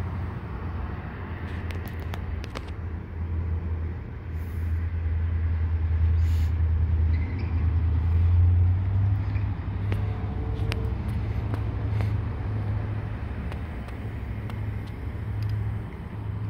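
Low, continuous rumble of a motor vehicle, swelling louder toward the middle and then holding a little lower, with a few faint clicks.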